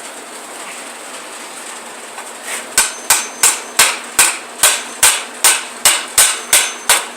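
Chipping hammer knocking slag off a fresh stick weld: a steady run of sharp metal-on-metal strikes, about three a second, with a faint ring from the steel. The strikes begin about two and a half seconds in, after a few seconds of low steady hiss.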